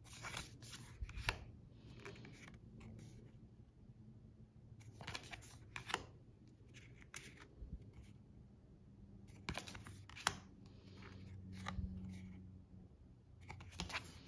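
Tarot cards being handled and flipped over one by one. Short bursts of card stock sliding and snapping against the deck come every few seconds, over a faint low room hum.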